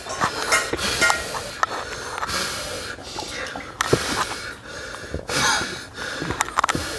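Several loud breaths and huffs through the mouth from people eating scalding-hot ragi sangati, with a few light clicks of hands and dishes.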